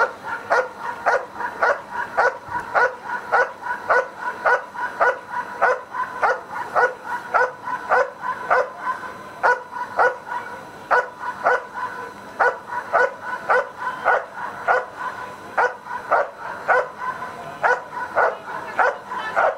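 Dog barking steadily at a protection-sport decoy holding a bite sleeve, about two loud barks a second, guarding him without biting.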